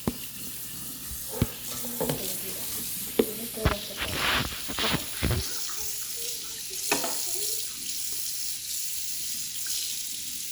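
Kitchen work sounds: a run of knocks, clinks and short scraping bursts over the first seven seconds, then a steady high hiss.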